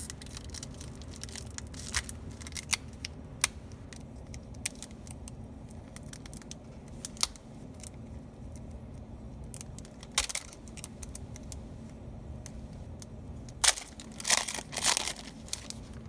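Pokémon trading cards and foil booster packs being handled: scattered light clicks and rustles as cards are slid and flipped, with louder crinkling about ten seconds in and again near the end, over a steady low hum.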